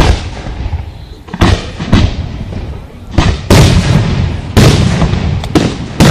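Aerial fireworks shells bursting in a rapid barrage: about eight sharp booms, each trailing off in a rumble, coming closer together and louder from about three seconds in.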